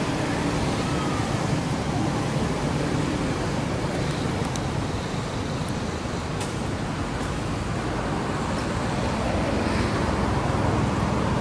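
Steady outdoor background noise: an even rumble and hiss, with a few faint ticks.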